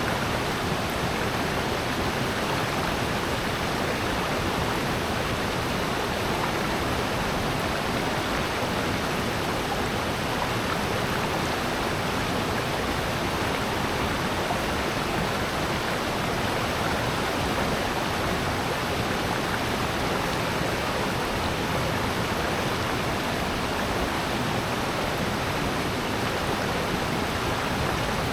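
Rushing water of a mountain valley stream: a steady, even rush with no change throughout.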